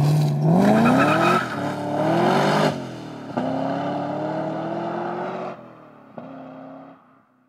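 Supercharged Chevrolet Camaro with a cold air intake accelerating hard away. Its engine note climbs and drops back at upshifts about one and a half and three seconds in, pulls up again, then fades into the distance and dies out near the end.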